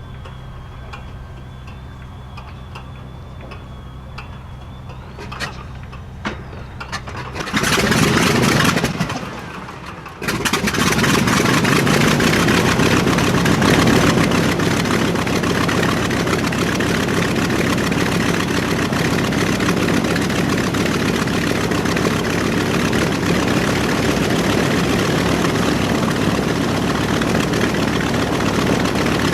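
Wright R-2600 radial engine of a B-25J Mitchell starting: a thin whine and steady ticking while it cranks, a few pops about five to seven seconds in, and a brief loud burst of firing that falls back. About ten seconds in it catches and settles into a loud, steady, rough run.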